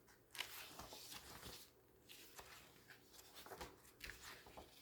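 Faint rustling of glossy magazine pages being flipped and handled, a series of soft brushes and slides of paper.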